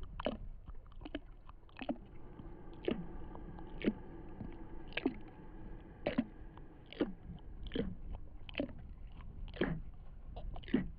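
Eerie horror ambience: a faint steady drone with sharp crunching strokes about once a second, each sliding lower as it fades.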